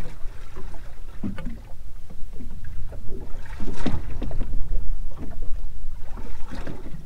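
Small waves slapping against the hull of a boat at sea, with a steady low wind rumble and scattered irregular knocks.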